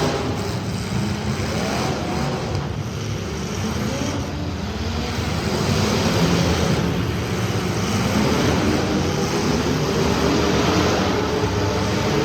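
Street stock race car engines running together at speed, several engine notes rising and falling as the cars accelerate and lift off.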